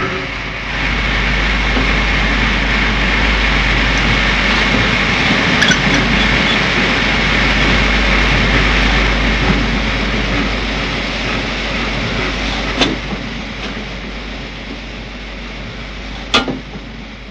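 Steam locomotive giving off a loud, steady hiss of steam over a low rumble, with two sharp clanks late on, about three and a half seconds apart.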